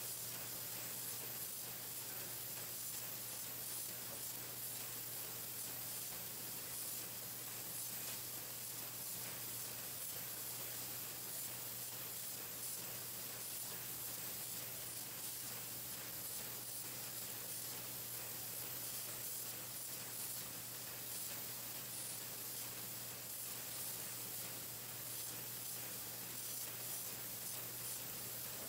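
Pencil painting machine running steadily: an even hiss over a low hum.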